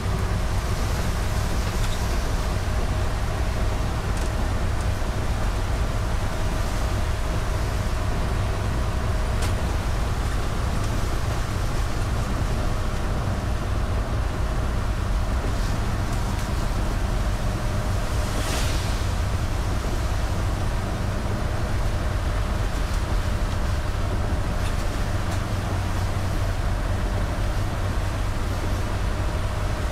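Steady in-cabin noise of a Toyota Land Cruiser driving on a wet road: low engine and road rumble under the hiss of tyres on wet tarmac, with a few faint swishes of the windscreen wipers.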